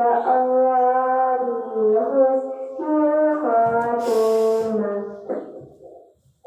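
A person's voice in long, held, wavering tones that step up and down in pitch, like a drawn-out moan or chant, with a breathy hiss about four seconds in; it fades away near the end.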